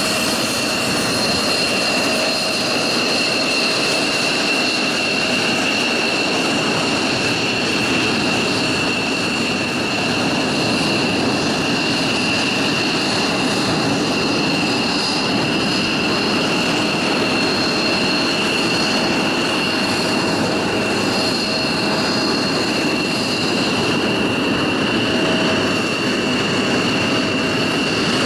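F-16 fighter jets taxiing, their jet engines giving a steady roar with two high, even whines on top.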